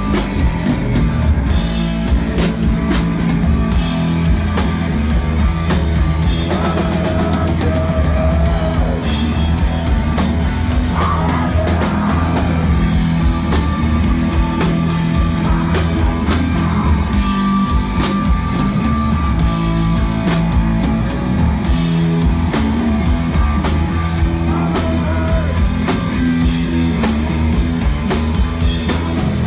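Live rock band playing a slow, heavy song on distorted guitars, bass and drum kit, with sliding lead-guitar lines over it.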